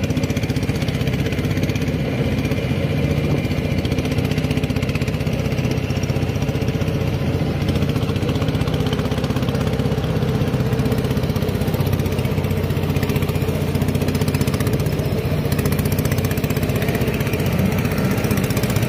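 A small boat's engine running steadily at a constant speed.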